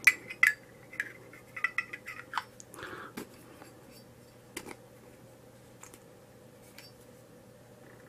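Metal clicks and clinks of a Zippo lighter's insert being fitted into its case, a quick cluster over the first three seconds and one more click a little past the middle.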